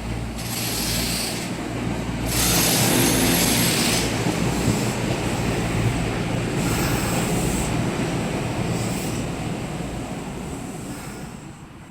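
An electric train running by on the line: its noise swells, is loudest a few seconds in, then slowly fades away.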